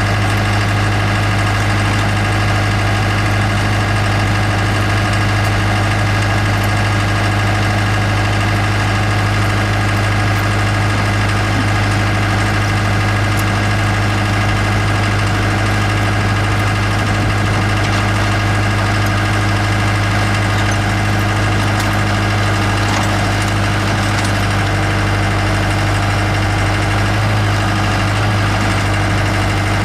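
Skid steer loader's engine running steadily at an even pitch, with no change in speed.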